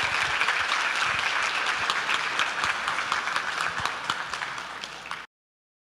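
Audience applauding, a dense patter of many hands clapping that eases slightly toward the end and then cuts off abruptly.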